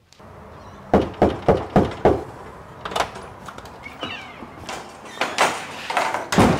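Five quick knocks on a door, then the door being opened and closed, with a loud thud near the end.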